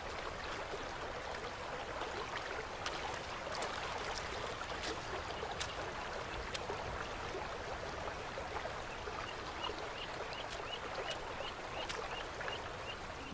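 River water running steadily, with scattered small clicks. About two-thirds of the way in, a faint run of short high peeps begins, about three a second.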